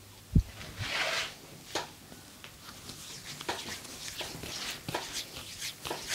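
Hands working on a person's body during a massage: one heavy thump about half a second in, a brief rubbing hiss just after, then a run of light taps and clicks.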